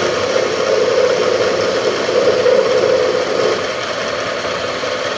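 A Bridgeport milling machine running with its cutter taking a pass along a slot: a steady machining noise with a pronounced hum that fades out about three and a half seconds in as the cut eases.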